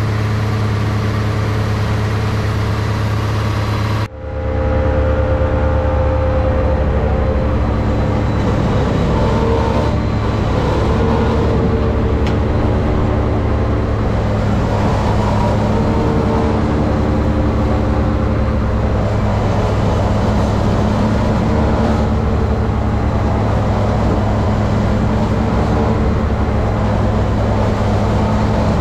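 Silo-filling machinery running steadily: an H&S twin-auger forage box unloading chopped hay into a tractor-driven Dion forage blower, with engine hum and the blower and wagon beaters turning. The sound breaks sharply about four seconds in, then the same steady machine noise carries on.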